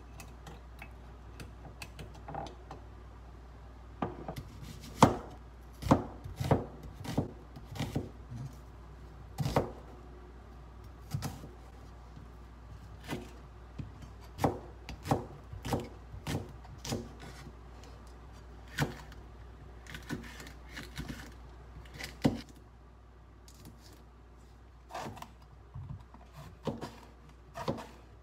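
Chef's knife chopping green onion and eggplant on a cutting board: irregular sharp knocks of the blade striking the board, in short runs, starting about four seconds in.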